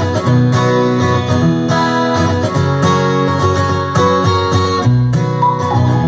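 Guitar-led music played back through a Sonos Play:3 wireless speaker.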